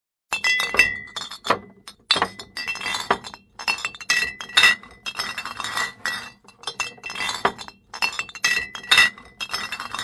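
Repeated clusters of light, sharp metallic clinks and jingles with a ringing tone, coming in bursts about every half second to a second.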